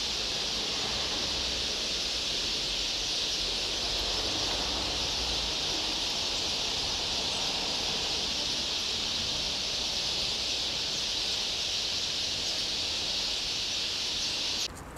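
Steady, even high-pitched insect buzz from the trees, over a faint low rumble.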